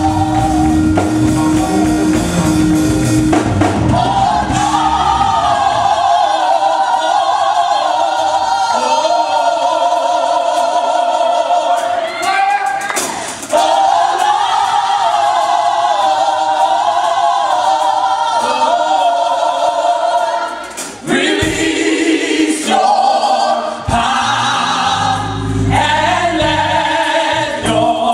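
Choir singing a gospel song with sustained, wavering vocal lines; a bass and drum accompaniment plays in the first few seconds and comes back about 21 seconds in.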